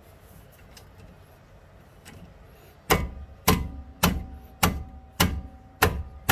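A hand striking the end of a size 14 spanner to break loose a brake caliper guide-pin bolt: sharp metallic knocks, a little under two a second, starting about halfway through, with the spanner ringing between blows.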